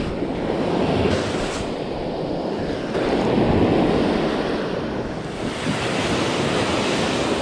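Small waves breaking and washing up a sandy beach, the surf swelling and easing, loudest around the middle, with wind on the microphone.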